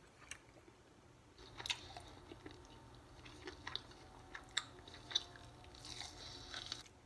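Close-up mouth sounds of a person eating a sauced fried chicken wing: chewing, biting and picking meat off the bone, with sharp wet clicks and smacks scattered through from about a second and a half in.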